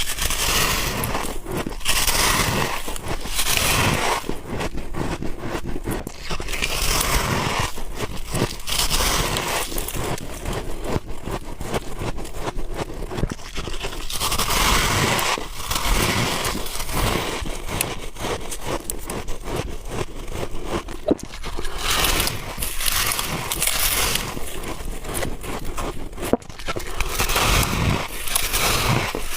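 Close-miked chewing of soft white ice and freezer frost: a dense crackling crunch that comes in repeated bouts of a few seconds, bite after bite.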